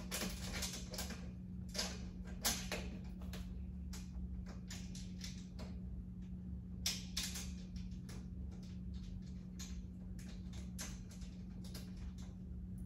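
Irregular clicks, taps and short rustles of small objects and containers being handled and set down, over a steady low hum.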